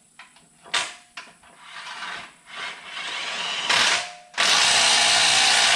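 Cordless power tool running a bolt in: a few short bursts, then one longer steady run about four and a half seconds in, tightening the bolt down.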